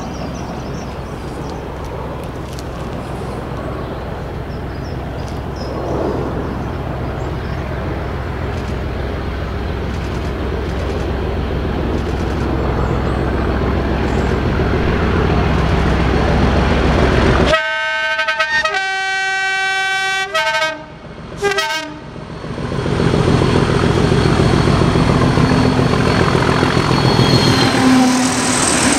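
English Electric Class 37 diesel locomotive under power, its V12 engine running louder and louder as it approaches. About two-thirds through it sounds its horn in two long notes at different pitches, then gives a short blast, and the rumble of the train passing takes over.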